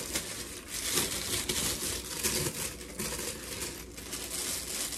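Packaging crinkling and rustling as it is handled by hand, in quick irregular crackles.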